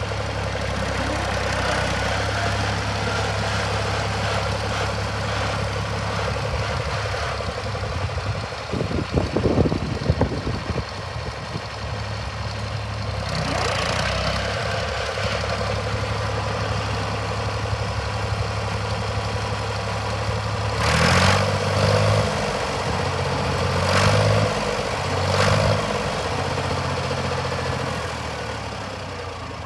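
David Brown 880 tractor's three-cylinder engine running at low speed as the tractor is driven. Near the end it swells briefly three times, then grows fainter.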